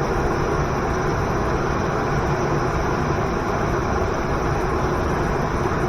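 Waterfall and river water rushing, a steady, even roar.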